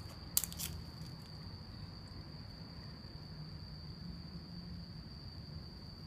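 Night insects trilling: one steady, unbroken high-pitched tone, over low rumble from the handheld phone. There is a short clicking handling noise about half a second in.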